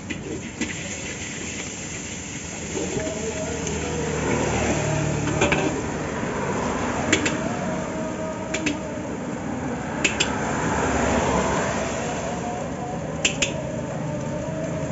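Egg frying in hot oil in a steel wok, the sizzle rising a few seconds in, with a metal spatula clanking sharply against the wok several times, some strikes in quick pairs.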